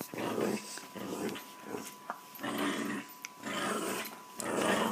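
Small dog growling in play while wrestling with bare feet, a string of short growls with brief pauses between them.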